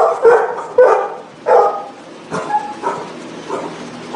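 Dogs barking in shelter kennels: about four loud barks in the first second and a half, then softer, scattered barks.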